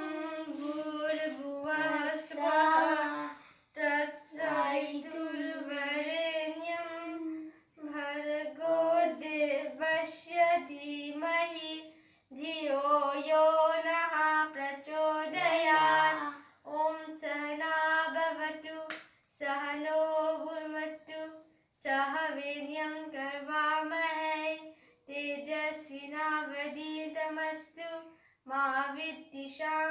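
A boy singing a melody in phrases of a few seconds, with short pauses for breath between them. No instrument is heard.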